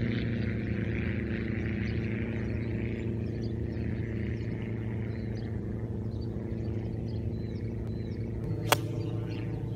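An iron strikes a golf ball once, a single sharp click near the end. Under it, an engine hums steadily, with faint bird chirps.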